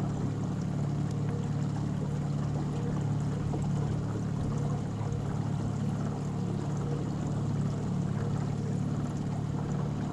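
A small boat motor running steadily with an even low hum, under a light wash of noise.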